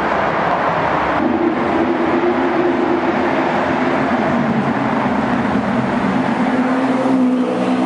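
Supercar engine running through a road tunnel, its echoing exhaust note held at a steady pitch from about a second in.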